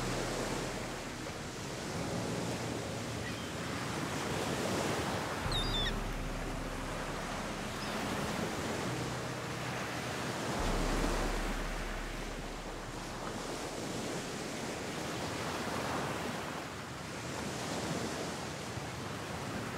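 Ocean surf breaking and washing onto a beach, a steady rush that swells and eases every few seconds.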